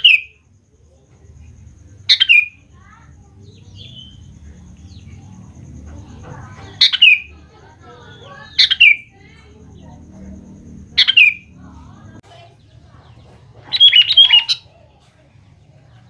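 Sooty-headed bulbul calling: loud, short notes that slide down in pitch, repeated every two seconds or so, with a quick run of several notes near the end.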